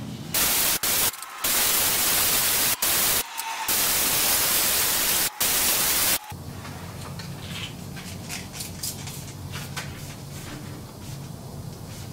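Compressed-air blow gun blasting grinding dust off bare steel before priming: a loud hiss in several long bursts with short breaks for about six seconds. It then stops, leaving faint rubbing and light ticks.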